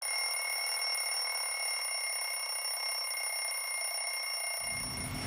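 Smartphone alarm going off: a steady, high-pitched electronic tone held without a break. Music comes in underneath near the end.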